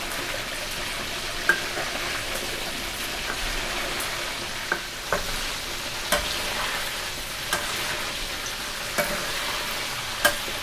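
Chicken wings deep-frying in hot oil in a wok: a steady sizzle, with sharp clicks now and then as a metal spatula stirs and knocks against the wok.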